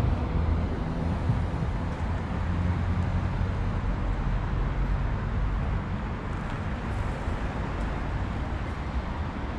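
Steady rumble of road traffic passing on the street.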